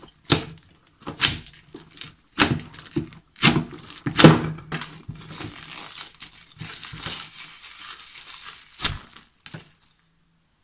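Plastic shrink wrap on a board game box being cut and torn open: a series of sharp rips, then a softer crinkling as the film is pulled off, with a single thump near the end.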